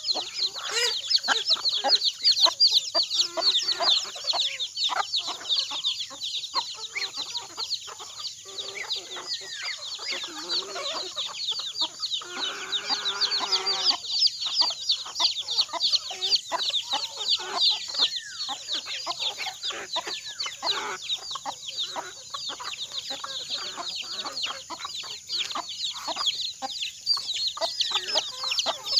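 Feeding flock of chickens with chicks: an unbroken run of rapid, high, falling peeps with clucking beneath. A longer, lower call comes about halfway through.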